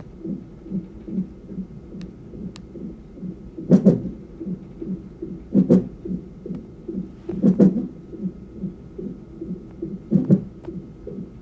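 Unborn baby's fast heartbeat picked up through the mother's belly, pulsing about two to three times a second. Four louder thumps come about two seconds apart: the baby hiccuping in the womb.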